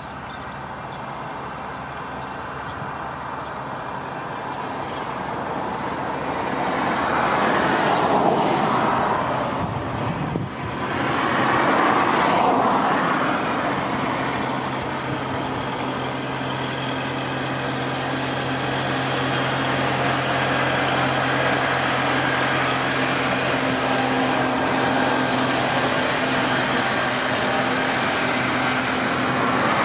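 Diesel vehicle engines running: two swells of noise rise and fall about 8 and 12 seconds in, then a steady engine hum holds from about 14 seconds on.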